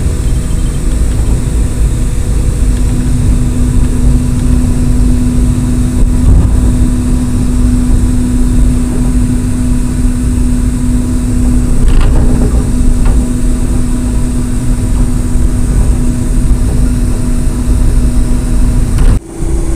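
Steady rumble of a moving vehicle with an even engine drone. The sound drops out briefly near the end.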